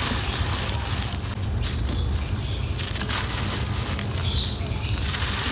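Lumps of dry, gritty sand and stone crumbled in the hands, with the loose grit pouring and pattering down in a dense run of tiny crackles.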